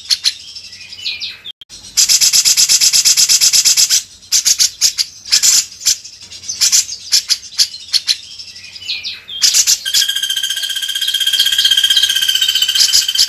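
Recorded songbird song: sharp, high, repeated chips and rapid trills, switching to a long, steady, buzzing trill about ten seconds in.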